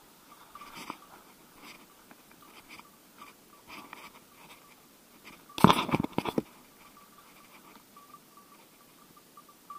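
Footsteps and dry bracken and branches rustling and crunching as a hunter pushes through undergrowth, with a loud burst of close scraping and crackling about five and a half seconds in that lasts under a second.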